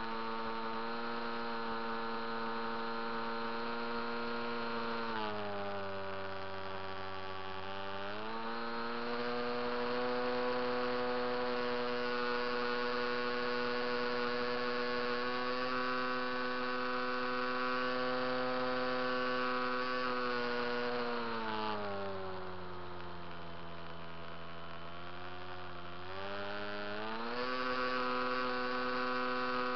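Onboard sound of the HobbyKing Coota RC seaplane's electric motor and propeller: a steady whine that drops in pitch twice as the throttle is eased back, about five seconds in and again about 22 seconds in, and climbs back as power is added.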